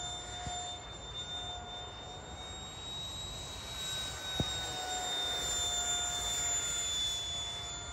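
64mm electric ducted fan of a small foam-and-cardboard RC jet whining in flight. The pitch lifts slightly past the middle and eases back near the end. A single sharp click is heard about halfway through.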